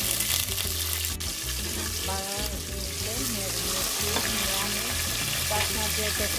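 Raw green mango wedges, chillies and mustard seeds sizzling steadily in hot mustard oil in a pot, stirred with a wooden spatula, with one click about a second in.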